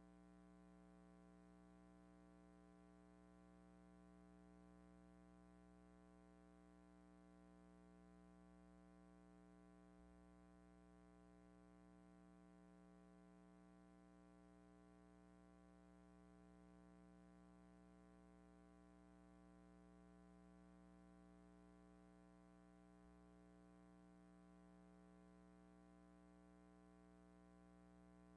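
Near silence: only a faint steady hum.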